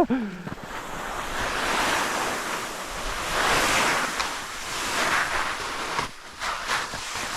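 Rushing, rustling noise from pushing through dense corn stalks, swelling and easing every second or so, with wind on the microphone. A few short snaps of stalks are heard near the end.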